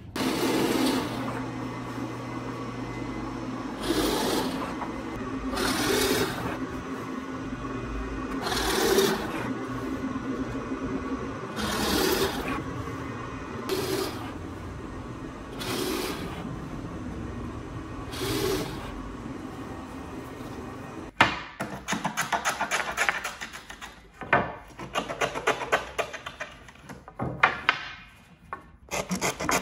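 A drill press runs steadily while a Forstner bit bores into a hardwood rail, biting in louder about eight times, every two to three seconds, as one hole after another is drilled. About 21 seconds in this gives way to a wooden hand plane shaving the end of a small wooden strip in quick, scraping strokes.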